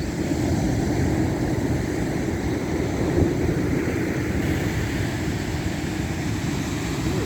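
Wind buffeting the microphone in a steady low rumble, with sea surf beneath it.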